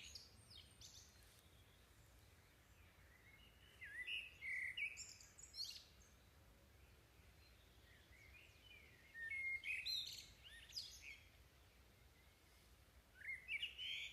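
Faint birds chirping in short clusters, about four seconds in, around ten seconds in and again near the end, over near silence.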